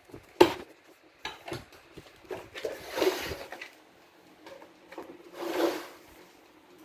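Handling noise: a sharp click about half a second in, a few lighter knocks, then two short rustling bursts, one around the middle and one near the end.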